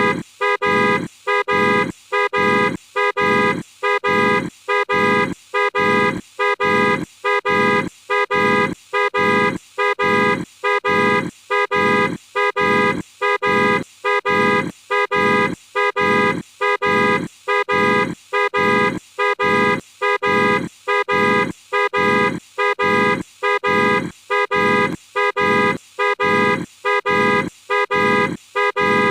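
A looped comedy sound effect of a horn-like honk mixed with hard, grunting breaths, repeating evenly about three times every two seconds.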